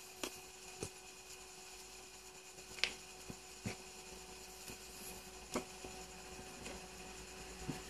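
Faint clicks and taps from handling a plastic folding pocket loupe magnifier, about eight scattered through, the loudest about three seconds in, over a steady electrical hum.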